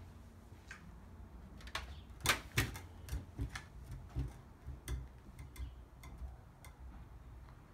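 Pallet-wood rocking chair rocking on concrete: a series of irregular sharp wooden clicks and knocks, about two a second, the loudest pair a couple of seconds in.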